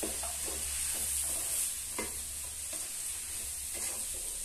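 A spatula stirring and scraping chicken, egg and vegetables around a non-stick kadai in quick short strokes while the food sizzles, with one sharper click against the pan about two seconds in.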